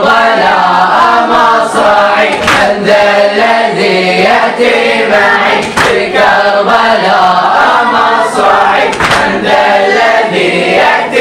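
Boys chanting a Shia Muharram latmiya (mourning chant) in chorus over a microphone, the voices singing the refrain together in a steady melody. A sharp hit lands about every three seconds in time with the chant.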